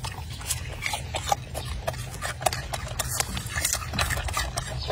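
Golden snub-nosed monkey chewing food close up: irregular crisp crunches and mouth clicks, a few a second, over a low steady rumble.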